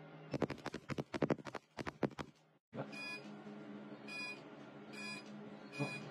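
Laser tattoo-removal handpiece firing, giving a run of sharp, irregular snapping clicks for about two seconds. After a short break the laser machine beeps four times, about once a second, over a steady low hum.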